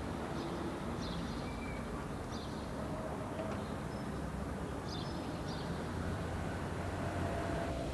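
Outdoor street ambience: a steady low rumble of distant traffic with small birds chirping briefly, about once a second.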